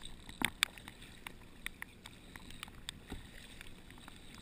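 Kayak paddle working in the water beside a sit-on-top kayak: a scatter of small sharp splashes, drips and knocks, the two loudest about half a second in, over a low wash of water and wind.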